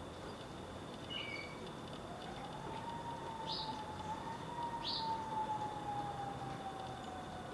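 A siren wails with one slow rise about two seconds in, holds, then slowly falls away. A few short, high bird chirps sound over it, two of them sharp downward calls.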